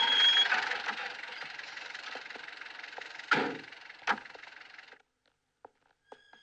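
An old van driving in and coming to a stop, its running noise fading, with a high steady squeal in the first half-second. Then two loud clunks about three and four seconds in as its door is unlatched and swung open.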